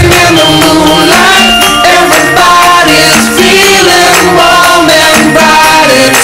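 Loud music with singing voices.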